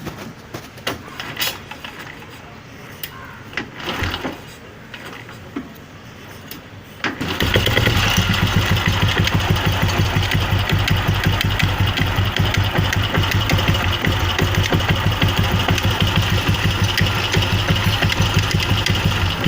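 Old Royal Enfield Bullet Electra's cast-iron single-cylinder engine starts about seven seconds in and runs at a fast, even idle, after a few scattered clicks and knocks. A rattle from the clutch (primary) chain runs with it, because the chain has gone slack.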